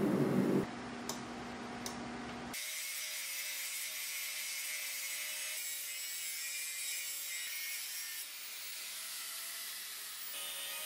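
Angle grinder grinding a steel bar: a steady high hissing grind with a thin whine, starting about two and a half seconds in. Before it, a loud low rumble cuts off under a second in, then two light clicks.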